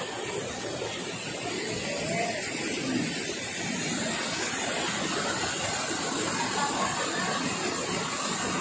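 Waterfall rushing, a steady continuous noise of falling water.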